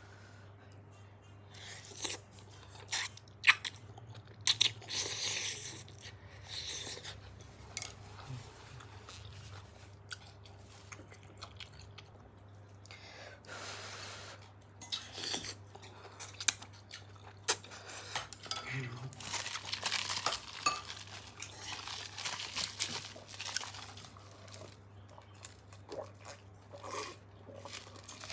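Someone eating udon noodles: chewing, with utensils clicking and clinking against the bowl at irregular moments, over a steady low hum.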